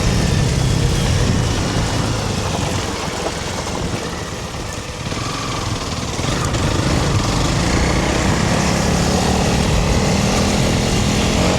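Honda CRF300 Rally's single-cylinder four-stroke engine running under way on a trail ride. It eases off about four seconds in and picks up again a couple of seconds later, with a steady hiss over it.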